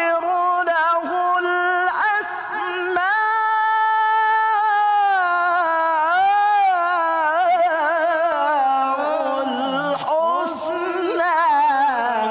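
A male Qur'an reciter chanting in the melodic tilawah style: a high voice holds long, ornamented notes, its pitch winding up and down in melismatic runs, with a brief break for breath a couple of seconds in.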